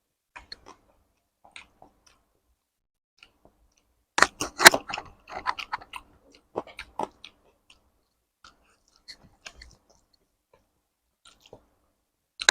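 Close-miked mouth sounds of a person eating curry and rice: wet chewing and sharp smacking clicks. A loud burst of bites and chews comes about four to five seconds in and goes on for a few seconds; otherwise there are only sparse faint clicks.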